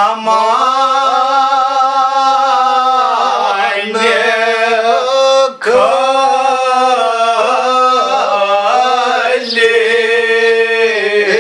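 A man's solo voice chanting a Muharram elegy in Kashmiri, in long held, wavering notes, with a short pause for breath a little past halfway.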